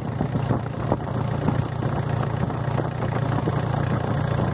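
Toyota 1KZ-TE 3.0-litre four-cylinder turbo-diesel idling steadily with a rapid diesel clatter, running smoothly on freshly fitted injectors with the intake pipe to the turbo still off.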